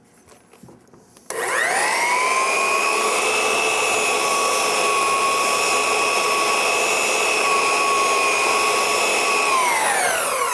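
4x24 belt sander switched on about a second in, its whine rising to speed and then running steadily while the belt is pressed against a crepe abrasive cleaning stick to clear glue and sawdust out of the belt. Near the end it is switched off and the whine falls as the sander spins down.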